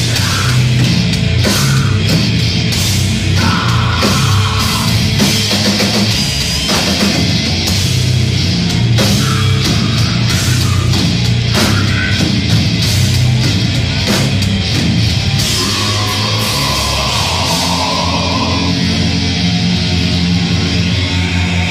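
Deathcore band playing live at full volume: heavy distorted guitars, bass and pounding drums, heard from the crowd.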